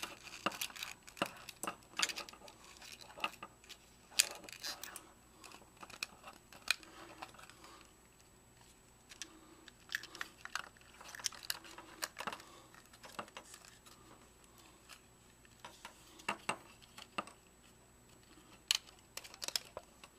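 Irregular plastic clicks, creaks and scrapes as the circuit boards of a Vivitar 2800 flash are worked loose and pulled out of its plastic housing by hand.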